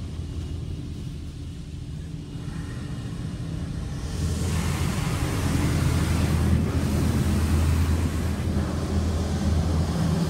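Washworld Razor touchless car wash spraying high-pressure water jets over the car, heard from inside the cabin as a steady low hum with a loud hiss of spray drumming on the body and glass that sets in about four seconds in.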